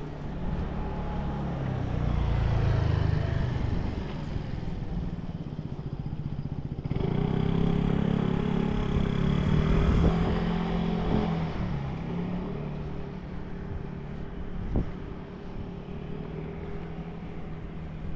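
Street traffic: motor vehicle engines running and passing close by. The rumble swells about two seconds in and again from about seven to eleven seconds, then settles to a steadier engine hum. A short sharp click comes near the end.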